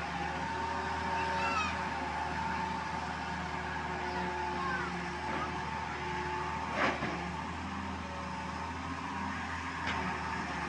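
Excavator's diesel engine and hydraulics running steadily, with a sharp knock about seven seconds in and a lighter one near the end.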